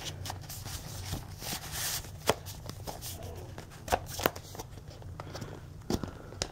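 Hands handling a Blu-ray/DVD combo case and its slipcover: light rustling and scraping with a few sharp clicks spread through, as the paper booklet is worked back into the case.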